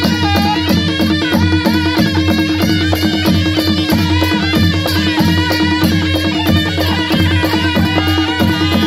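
Nepali panche baja band playing a folk dance tune: a wavering reed melody over drums, with cymbals clashing about three times a second in a steady beat.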